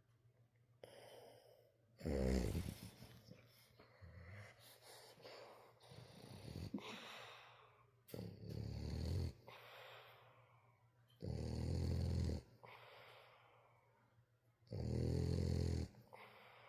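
French bulldog snoring loudly in its sleep: four long, rasping snores a few seconds apart, with softer wheezy breaths between them.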